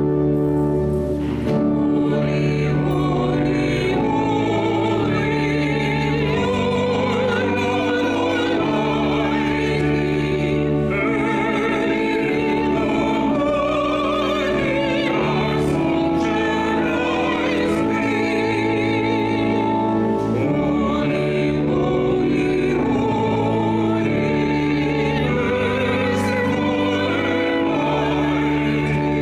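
Sacred music: voices singing with vibrato over long held accompanying chords.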